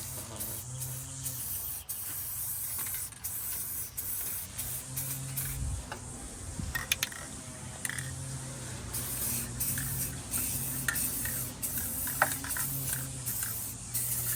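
Aerosol spray-paint can spraying in repeated hissing bursts with short pauses between, as a rattle can is worked over an engine part, with a few faint clicks.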